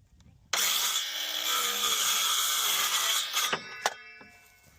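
A power tool runs loudly for about three seconds, then stops, leaving a fainter whine that dies away, with a sharp click shortly before the end.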